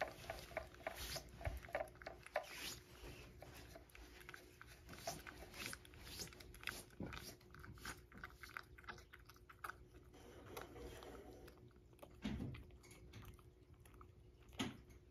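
A cat licking churu paste from a ceramic bowl: a run of quiet, quick, wet licking clicks, with two louder knocks near the end.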